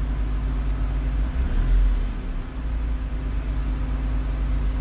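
Car engine idling steadily at about 750–790 rpm with the car standing still, heard from inside the cabin as a steady low rumble.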